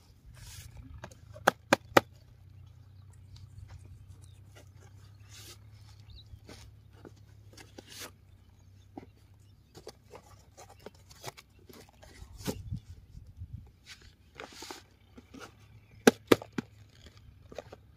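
Cardboard boxes being handled: small white boxes scraped and slid out of a cardboard carton and set down, with scattered rustles and scrapes and sharp taps, three close together about a second and a half in and two more near the end.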